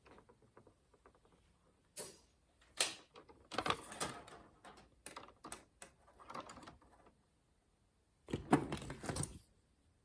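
Irregular clicks, scrapes and clatters of copper wire being stripped of its insulation and handled, with a longer, louder rustling clatter near the end.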